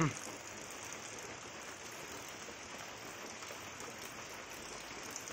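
Light rain falling, a steady even hiss, with rainwater trickling off the edge of the roof.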